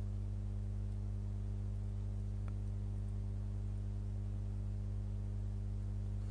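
Steady low electrical hum: a stack of constant low tones, unchanging, with no other sound.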